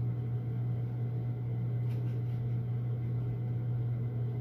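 A steady low hum with a faint rushing noise behind it, like a small motor or appliance running, and a faint click about two seconds in.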